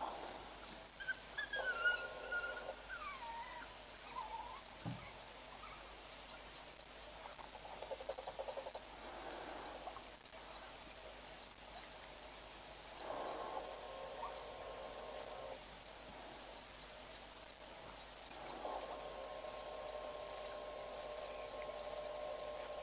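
An insect chirping in a steady rhythm, high-pitched chirps a little more than one a second.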